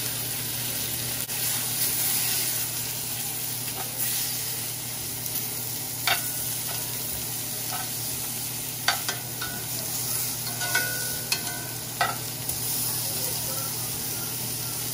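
Oxtails searing in olive oil and butter in a cast-iron skillet, a steady sizzle. Several sharp clinks of metal tongs against the pan come in the second half as the pieces are turned.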